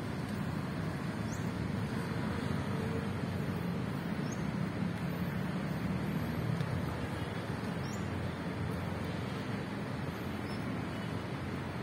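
Steady city road traffic noise: a continuous low rumble from vehicles on a busy multi-lane street.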